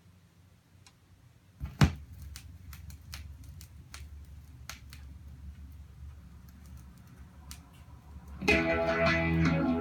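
Stylus of a Dual 1246 automatic turntable set down on a record with a sharp thump, followed by low hum and scattered clicks and pops of the lead-in groove. Music (guitar) then starts through the speakers near the end.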